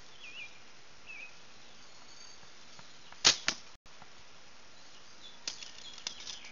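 A bow shot: a sharp snap as the bowstring is released about three seconds in, and a fifth of a second later a second, quieter crack as the arrow strikes the target. Faint bird chirps early on.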